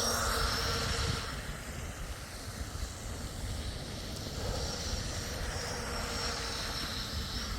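Electric RC tunnel boat's brushless motor and drive whining as the boat runs across the water. The whine fades up and down, strongest in the first second and again from about halfway to near the end.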